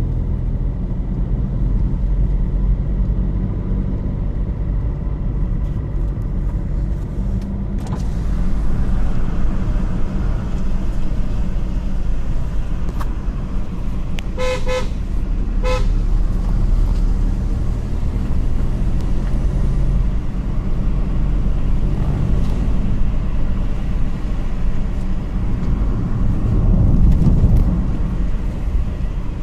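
Steady low rumble of a running vehicle engine, with two short horn honks about halfway through.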